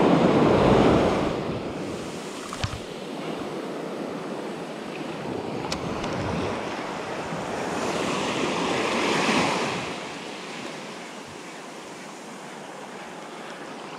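Small waves breaking and washing up a sandy shore, the wash surging loudest at the start and again about two-thirds of the way through.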